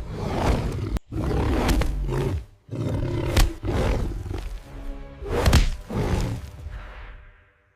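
Big cat roaring several times in loud bursts over dramatic music, fading out near the end.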